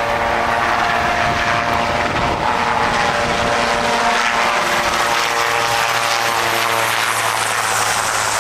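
Marine Corps presidential-fleet helicopter in flight close by, a loud, steady mix of rotor noise and turbine whine.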